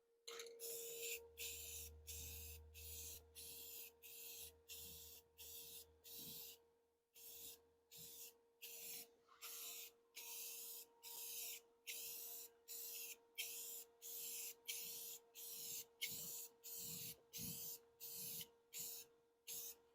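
Aerosol can of gloss black spray paint hissing in short, quick bursts, about two a second. Underneath is a steady faint hum from a battery charger.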